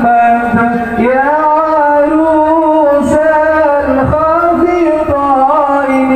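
A man singing sholawat, a devotional song in praise of the Prophet, into a microphone. He sings in long held notes with ornamented turns in pitch.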